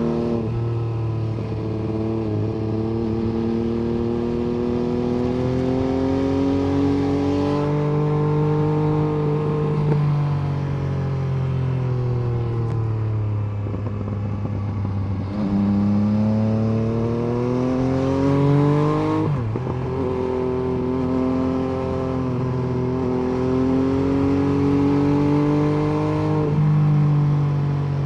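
MV Agusta F3 800 inline three-cylinder engine and exhaust under way. The revs climb and fall repeatedly, with quick upshifts about a third of the way in, about two thirds in and near the end, and a long slowing stretch of falling revs in the middle.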